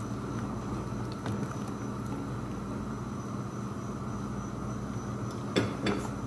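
A pot of lentil and purslane stew simmering on the stove under a steady low hum. Two short knocks come near the end.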